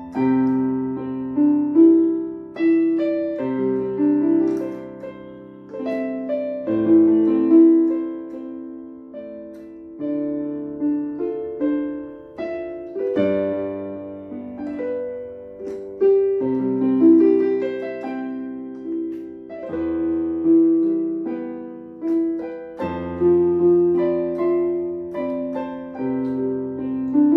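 Casio LK-202TV electronic keyboard played with both hands: a melody over held chords, the bass note changing about every three seconds.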